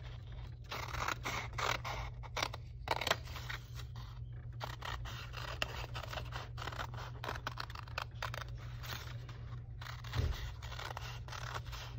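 Scissors cutting through a folded sheet of paper, two layers at once, in a long run of short, irregular snips and rasping cuts.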